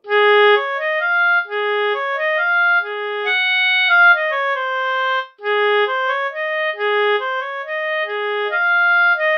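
Oboe playing a lively melody of short, separate notes. A low note keeps coming back between rising and falling runs. The phrase breaks off briefly a little past halfway and then starts over.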